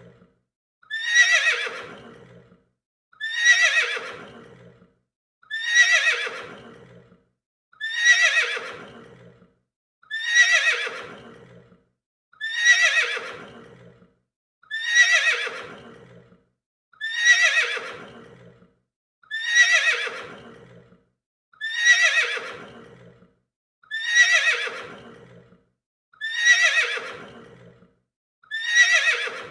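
A horse neighing: the same whinny repeated about every two and a quarter seconds, each call sliding down in pitch and fading away over about a second and a half, with a short silence before the next.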